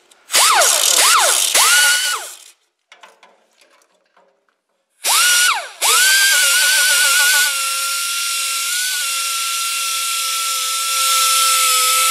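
Pneumatic air grinder with an abrasive disc grinding the pitted flange of a cast-iron tractor exhaust manifold. It gives a few short bursts, its whine rising and falling as it spins up and down. After a pause it runs for about seven seconds, the pitch wavering as the disc bites, then holding steady.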